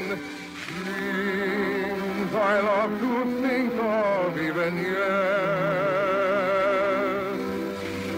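Operatic singing with a wide vibrato over an orchestra, from an operetta number in a 1950 radio broadcast. One long note is held through the second half.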